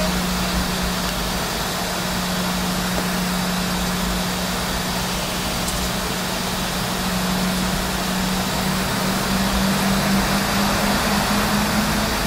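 Jet airliner cabin noise on a Boeing 717: the rear-mounted Rolls-Royce BR715 turbofans and air-conditioning running with a steady hum and hiss, the hum's pitch rising slightly over the last few seconds.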